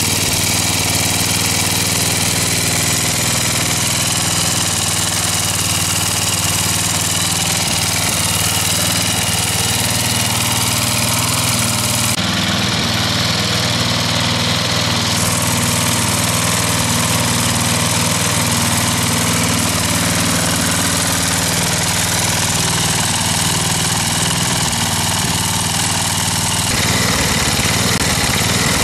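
Wolf-Garten riding mower engine running steadily at idle.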